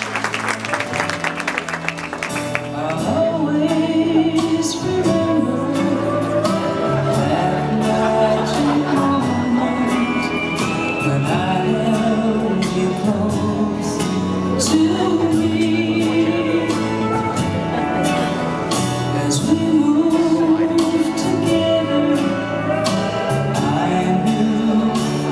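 A song with a singer and a regular beat, played back over a DJ's loudspeakers in a large hall.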